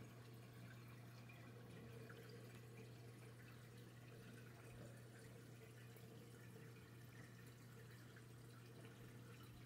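Near silence: a faint steady low hum with a faint trickle of water, the running sound of a reef aquarium.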